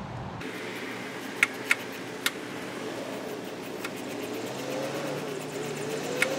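A few sharp clicks and taps from a hand tool and plastic trim being handled at the car's front end, over a steady outdoor hiss. A faint engine drone rises and falls in pitch in the second half.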